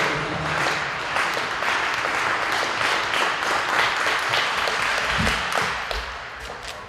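Spectators clapping through the vaulter's run-up, dying away near the end.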